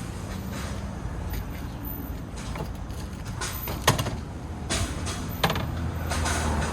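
Steady low rumble of street traffic with a few sharp clicks and knocks, the loudest about four seconds in and another about a second and a half later.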